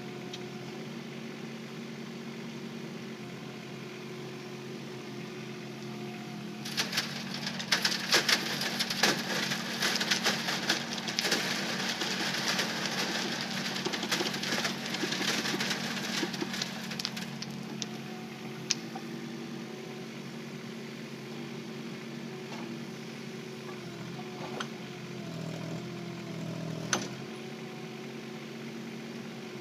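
Kubota K008-3 micro excavator's small three-cylinder diesel running steadily. From about seven seconds in, a long loud clatter of stones rattles for about ten seconds, typical of stony soil being dumped and shaken through a screen. Near the end the engine note changes briefly under hydraulic load, with a single sharp knock.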